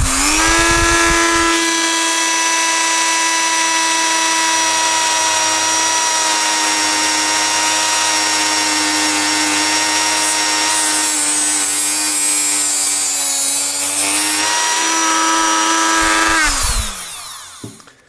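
Dremel rotary multitool with a cut-off wheel cutting through 3 mm steel wire rope: a steady, high motor whine with a grinding hiss over it. The pitch rises right at the start as the speed is set to 8. Near the end the motor winds down and stops about a second before the end.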